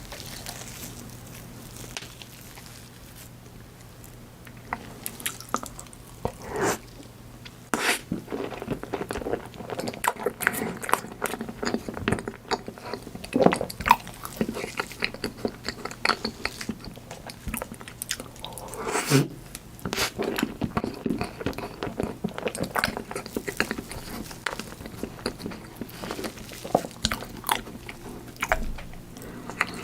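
Close-miked mukbang eating sounds: a person biting and chewing chocolate foods, with irregular crunches and wet mouth clicks.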